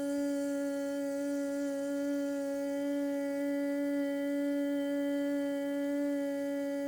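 A woman's voice holding one long, steady hummed note, voicing the lung sound of the Six Healing Sounds qigong practice.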